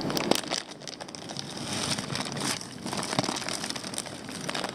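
Plastic fish-shipping bags crinkling and rustling as they are handled and lifted out of a box, with irregular crackles and sharp clicks.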